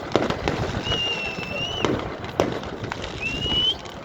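Fireworks going off: repeated bangs and crackles, with two whistling shells, the first held for nearly a second and the second shorter and rising in pitch.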